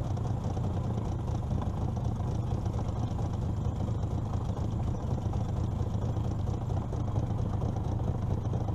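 Outboard motor of an aluminium jon boat running steadily with a low hum, the boat moving slowly along the bank.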